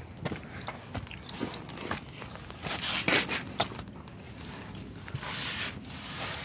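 Shuffling footsteps, scrapes and rustling of a person moving about and crouching down, with a few light clicks. The scuffs are loudest about three seconds in.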